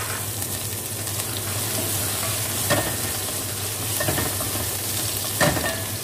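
Garlic, onion, chicken and red chillies frying in oil in a pot, sizzling steadily, while a spoon stirs them and scrapes against the pot three times.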